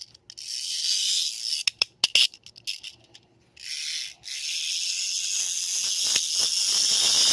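A harsh, rattling hiss, made deliberately as an annoying noise: a high hiss in long stretches, with a few sharp clicks about two seconds in and a short break around three seconds in.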